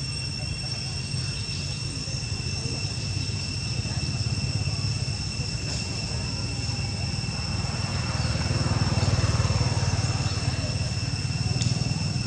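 Steady outdoor background: an unbroken high-pitched insect drone over a low, steady rumble.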